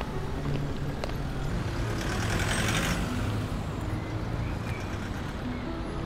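Street traffic: a steady low engine hum from road vehicles, swelling to a louder rush about two to three seconds in.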